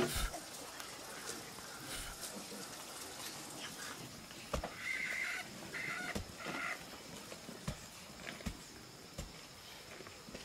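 A long-handled pick striking into a packed dirt bank: dull thuds, about one a second in the second half. A short animal call in three brief parts is heard near the middle.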